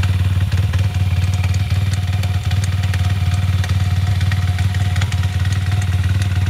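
YCF pit bike's single-cylinder four-stroke engine running steadily at idle, with a fairly regular metallic ticking over it. The owner suspects the ignition, though the bike runs, starts and shifts fine.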